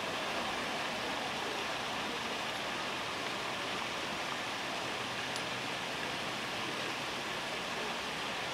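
Steady rushing splash of a tiered stone fountain's falling water.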